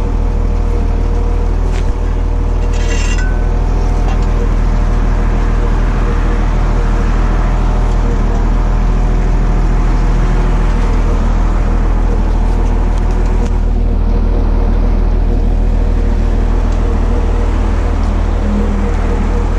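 Motor grader's diesel engine running steadily under load while its moldboard scrapes through gravel, with a few sharp clicks of stones, the clearest about two and three seconds in.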